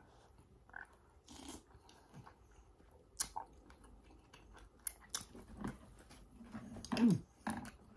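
A person chewing a mouthful of pho noodle soup, with scattered small clicks and wet mouth noises, and a short voiced sound about seven seconds in.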